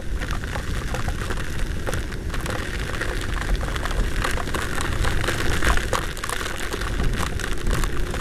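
Heavy storm rain pelting the rider and camera of a moving scooter: a dense patter of drops with many sharp ticks, over a heavy rumble of wind on the microphone.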